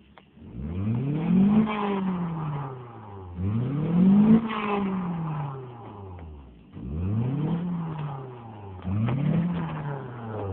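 1997 Mazda 626 engine on its stock exhaust, revved four times while standing: each blip rises in pitch over about a second and falls back toward idle, the last one shorter.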